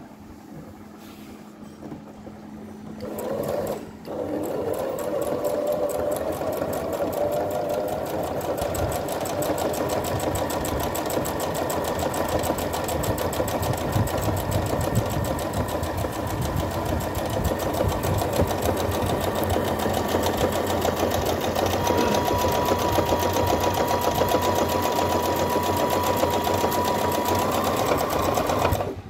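Brother LX27NT electric home sewing machine stitching through fabric. It starts with a short run about three seconds in and halts briefly, then runs steadily with a motor whine until it stops near the end.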